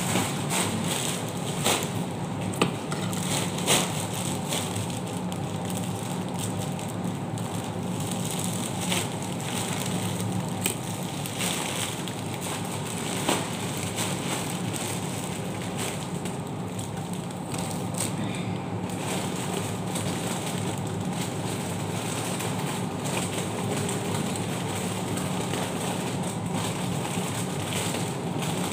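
Plastic snack wrappers and a plastic bag crinkling and rustling as packets are handled and stacked, with a few sharper crackles in the first few seconds, over a steady low hum.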